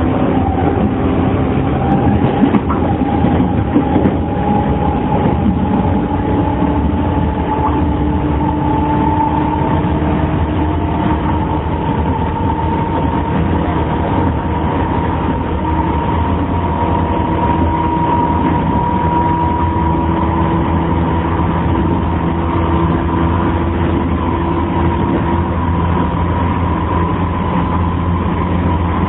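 Interior running sound of a JR 115-series electric multiple unit motor car with resistance control: a steady rumble under a motor-and-gear whine that rises slowly in pitch as the train gathers speed. The air conditioning is running. This car makes a wind-like noise that the uploader treats as abnormal.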